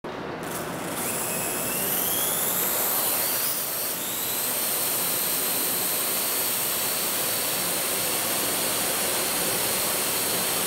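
Parrot AR.Drone 2.0 quadcopter's electric motors and propellers whirring with a high whine. The whine rises in pitch over about the first four seconds, then holds steady.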